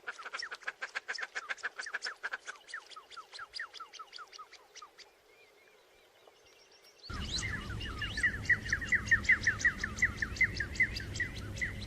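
Duck calling, the bird known as the 'Chinese duck' or 'Umm Jamil': rapid runs of short, falling whistled notes, several a second. The calling fades away after about five seconds, then starts again about seven seconds in over a low hum.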